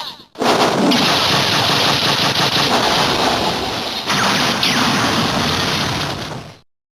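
Kamen Rider Marika's finisher-attack sound effect: a dense, rapid crackling blast like machine-gun fire, with two sweeping whooshes, lasting about six seconds and cutting off suddenly.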